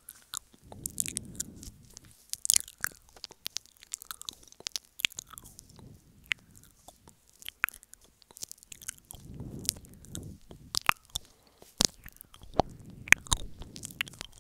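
Close-up wet mouth sounds of ASMR ear eating: irregular sharp lip and tongue clicks and smacks right at the microphone, with a couple of softer rustling stretches between them.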